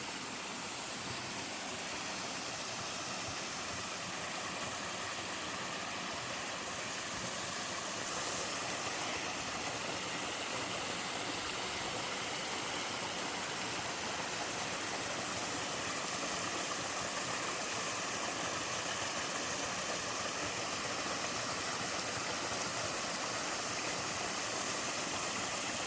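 Water from a pair of small waterfalls in a mountain stream, a steady rush that grows slightly louder about eight seconds in.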